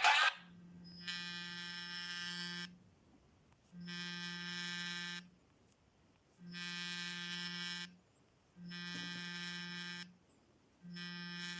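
Phone incoming-call ringtone: a low, buzzy electronic tone sounding in repeated pulses, five times, each about one and a half to two seconds long with short gaps between.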